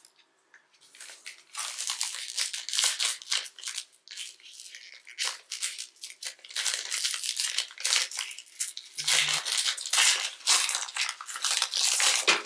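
Plastic wrapper of a Panini Prizm Draft Picks trading-card pack crinkling and tearing as it is handled and opened, in dense runs of sharp crackles with a lull about four seconds in.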